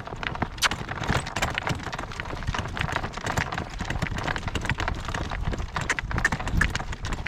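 Morgan horse's hooves clip-clopping at a steady trot while he pulls in harness, with wind rumbling on the microphone.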